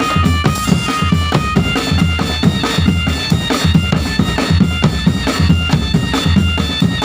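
Marching drum band playing a tune: a reedy wind melody of short notes over steady bass drum beats and snare strokes.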